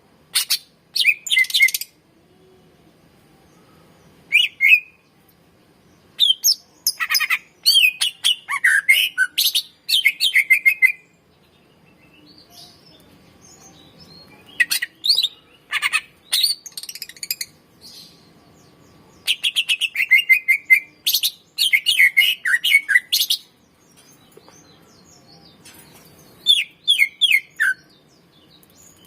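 Greater green leafbird (cucak ijo) singing in loud phrases of rapid, sharp chirps and falling whistled slurs, separated by pauses of a few seconds.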